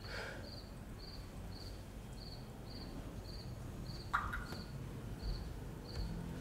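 Faint cricket chirping at an even pace, about two chirps a second, with a single knock about four seconds in.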